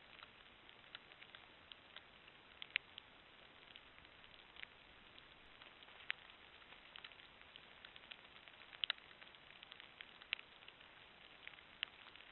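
Light rain: a faint steady hiss with scattered, irregular sharp drip ticks, picked up by a trail camera's microphone.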